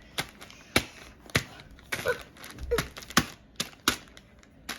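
A series of sharp, irregular clicks and taps, about ten in under five seconds, unevenly spaced.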